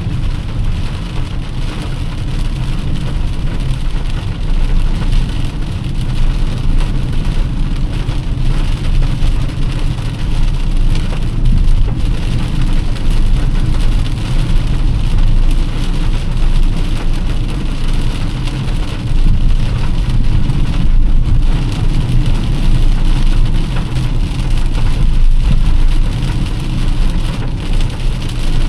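Heavy rain falling on a moving car, over a steady low rumble of engine and road noise.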